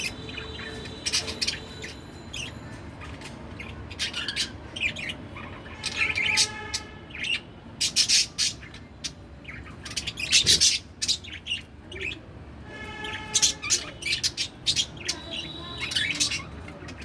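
Pet budgerigar chirping in quick runs of short, sharp calls, with stretches of pitched warbling chatter in between.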